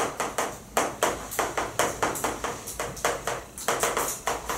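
Chalk writing on a blackboard: a quick run of short taps and scrapes, about three strokes a second, as a line of words is written.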